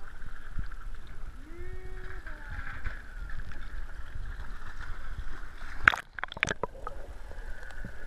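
Lagoon water sloshing and lapping against a waterproof action-camera housing held at the surface, with faint distant voices. About six seconds in, a few sharp splashes as the camera dips under the water.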